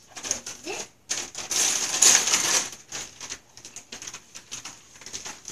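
Gift-wrapping paper crinkling and tearing as a present is unwrapped by hand, a dense crackle that is loudest from about one to two and a half seconds in, then fainter rustling.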